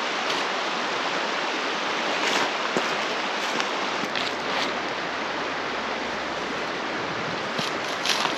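Sea waves washing on the shore: a steady rushing of water, with a few short louder swells about two seconds in and near the end.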